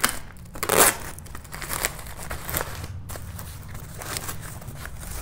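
Brown paper parcel wrapping being torn open and crumpled by hand, with a louder burst of ripping about a second in, then irregular crinkling and crackling.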